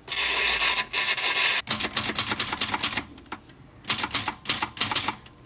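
Old portable mechanical typewriter: a continuous rasping rub for about a second and a half as the ribbon reel is wound by hand, then two quick runs of typebar keystrokes with a short pause between.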